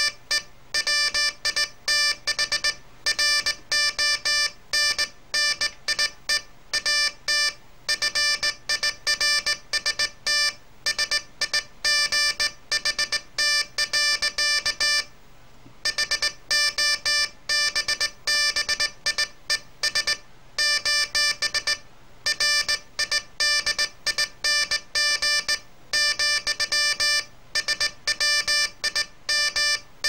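Morse code sent by hand on a straight key: a buzzy, mid-pitched beep from a code practice oscillator, keyed on and off in dots and dashes, with one pause of about a second just past halfway.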